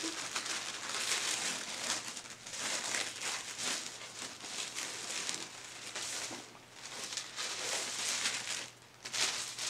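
Black tissue paper crinkling and rustling as it is unfolded and lifted out of a box, in uneven handfuls with short pauses, the longest near the end.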